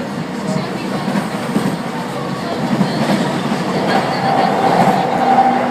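Keiyo Line electric train running at speed, heard from inside the car: a steady rumble of wheels on the rails. About four seconds in a steady whine rises over the rumble.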